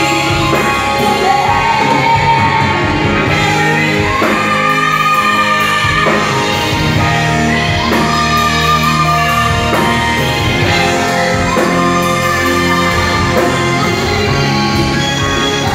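A woman singing into a microphone over loud backing music, holding long wavering notes.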